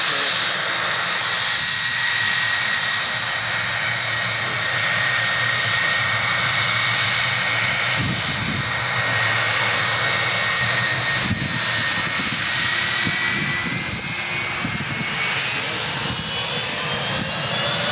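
Boeing 757-200's twin jet engines running at low power as the airliner lines up, a steady high whine over a broad roar. In the last few seconds the whine starts to rise in pitch as the engines begin to spool up.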